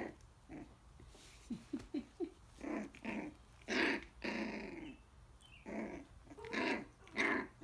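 Coton de Tulear puppies, almost four weeks old, play-fighting: little growls and squeaky yips in short bursts, with a quick run of squeaks about two seconds in.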